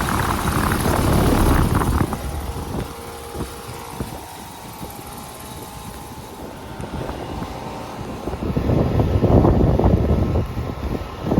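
Outdoor heat pump condenser unit running in cooling mode: the compressor and condenser fan make a steady hum with a few held tones. Gusty wind rumbles on the microphone come near the start and again from about eight seconds in.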